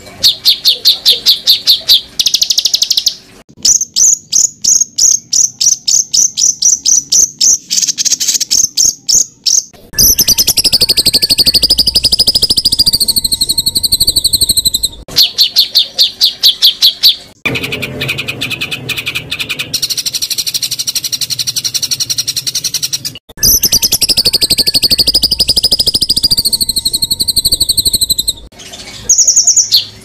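Compiled songbird calls of several birds, used as tutoring audio for competition songbirds. Fast strings of high, repeated chirps come first, then long buzzy trills that slide up and down in pitch. The clips switch abruptly several times.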